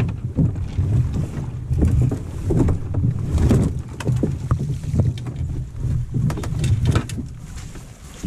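A canoe being hoisted and flipped up onto a paddler's shoulders. The hull knocks and scrapes against brush, with heavy rumbling handling noise and irregular bumps from the camera mounted on the canoe. The rumble eases near the end, once the canoe is settled overhead.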